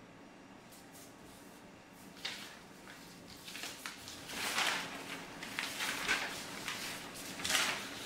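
Large sheets of drawing paper rustling and crinkling as they are gathered up and handled by hand, starting about two seconds in and growing louder in uneven surges toward the end.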